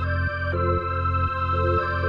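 Background music: sustained electronic organ or keyboard chords over a steady bass line that changes note about every half second.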